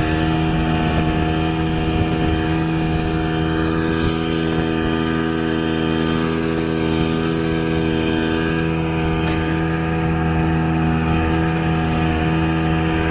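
Speedboat engine running at a steady speed, its pitch holding even with no revving up or down.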